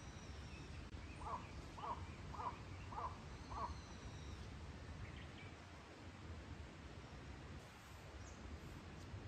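Forest birds: one bird gives five calls in an even series, a little under two a second, about a second in. Thin high whistled notes from another bird sound over a steady low background rumble.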